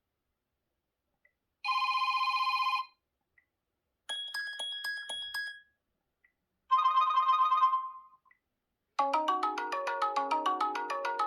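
Sony Xperia 1 IV ringtones played one after another, with short gaps of silence: a brief buzzing trill, a few bright chime pings, another short trill, then a tune of quick rising and falling notes that starts about nine seconds in.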